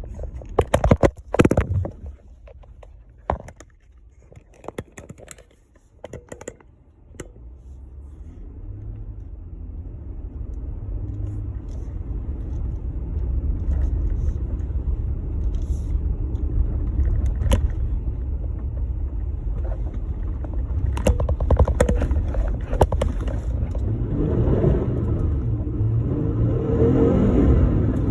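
A few sharp knocks and clatters, then a Jeep Gladiator pickup moving off, its low rumble building over several seconds and then holding steady.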